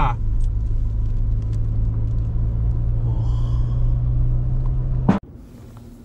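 Car engine and road rumble heard from inside the cabin while driving, the engine note creeping slowly higher; it cuts off suddenly about five seconds in.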